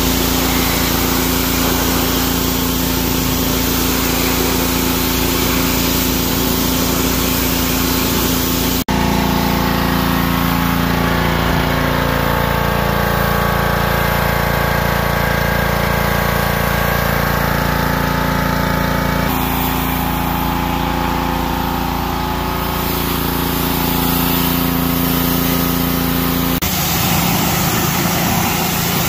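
Pressure washer running steadily: a small engine's drone under the hiss of the high-pressure water jet. The drone's tone changes abruptly a few times.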